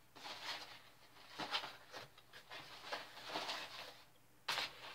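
Packing paper rustling and crinkling as hands dig through a box, in several irregular bursts, with a sharper crackle near the end.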